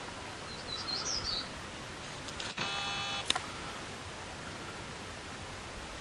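A short electronic beep of under a second, ending in a sharp click, as a camera makes when it focuses and fires its shutter. Before it come a few quick, high bird chirps, all over a steady outdoor hiss.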